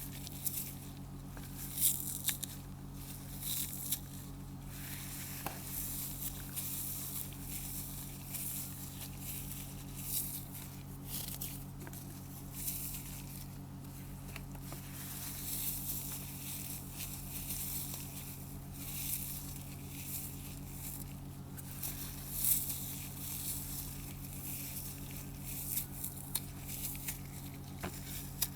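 Dry floral foam scored into a grid being crushed, with irregular crisp crunching and crackling as the foam breaks and crumbles. A few sharper crunches stand out.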